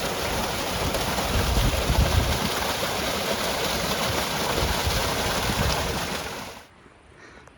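Wind buffeting the microphone: a steady rushing noise with an uneven, gusty low rumble, cutting off suddenly near the end.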